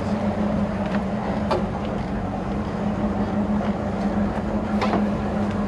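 Fishing boat's engine running with a steady low hum while trolling, with a couple of faint clicks about a second and a half in and again near the end.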